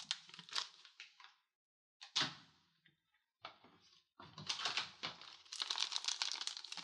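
Crinkling and rustling of a plastic snack packet being handled, in short spurts at first and nearly continuous from about four seconds in.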